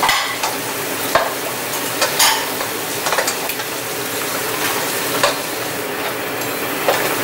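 King crab legs sizzling in garlic butter in a frying pan, with sharp scrapes and clinks of a metal slotted spatula about once a second as the legs are stirred and turned.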